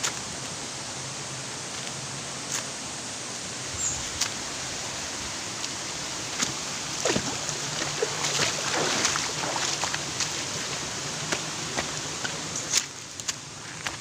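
Steady rush of flowing water, with scattered clicks and steps over it that come thickest in the middle.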